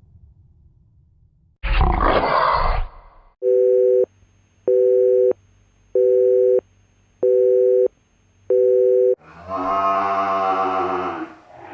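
Sound-effect clips played in turn. First a short, rough animal roar lasting just over a second. Then five evenly spaced beeps of a two-note telephone busy signal. Last, a long animal call with a slightly falling pitch.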